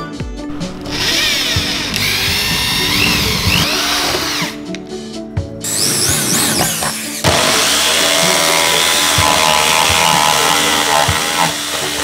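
Electric drill boring a starter hole through a refrigerator door, its whine rising and falling. About seven seconds in, a Maktec jigsaw takes over, cutting steadily and louder into the door panel.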